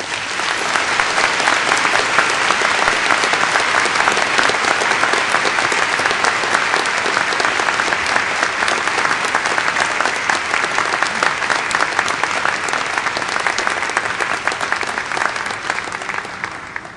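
Audience applauding: a large crowd clapping, swelling in at the start, holding steady, and fading out near the end.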